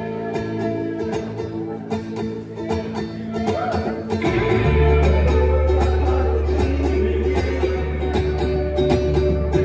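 Live band playing an instrumental passage led by fast banjo picking, with a deep held bass note coming in about four seconds in.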